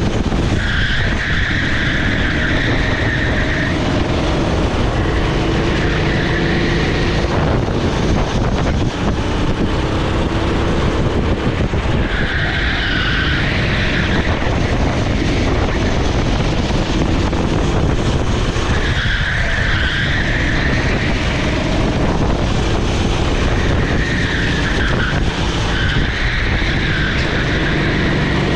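Onboard sound of a rental kart's Honda GX390 single-cylinder four-stroke engine running hard, its revs rising and falling. The tyres squeal four times, in stretches of a couple of seconds.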